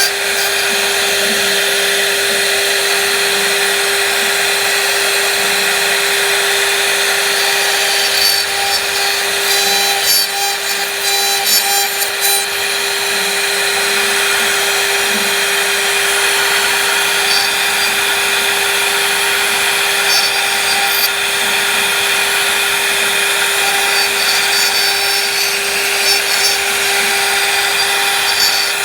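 CNC router spindle running at a steady high speed with a constant whine while cutting wood. Bursts of clicking and crackle from the cut come about a third of the way in and again near the end.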